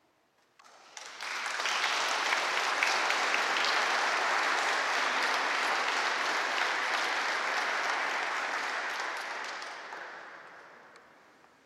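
Wedding guests applauding after a song. The clapping starts about a second in, builds quickly, holds steady, and fades away over the last couple of seconds.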